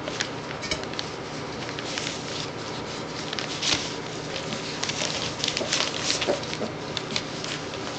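Three-week-old Newfoundland puppies eating scrambled eggs from a shallow metal pan: a busy, irregular run of smacking and clicking sounds.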